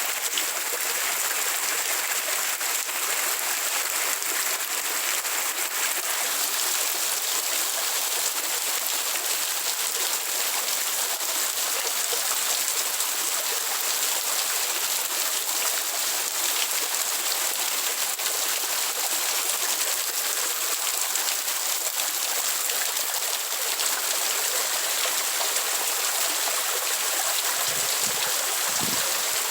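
Steady rain falling, a constant even hiss with water running.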